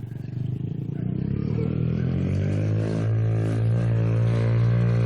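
Dirt bike engine running, growing louder over the first two seconds and then holding steady.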